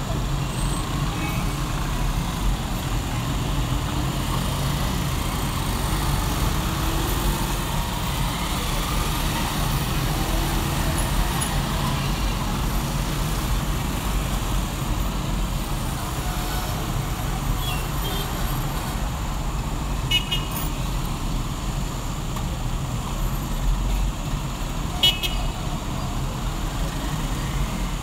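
City road traffic: a steady rumble of car and motorcycle engines, with a few short horn toots in the second half.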